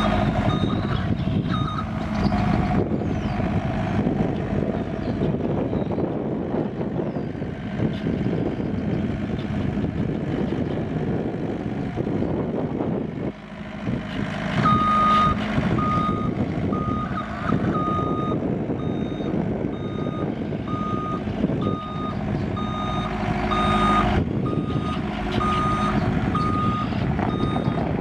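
Komatsu SK1020-5N skid steer's Yanmar four-cylinder turbo diesel running as the machine drives about, with its backup alarm beeping steadily, a little more than once a second, through the second half while it reverses.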